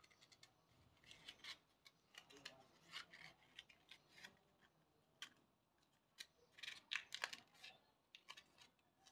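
Faint crinkling and rustling of paper being rolled and pressed into a cone by hand, in short scattered crackles, loudest about seven seconds in.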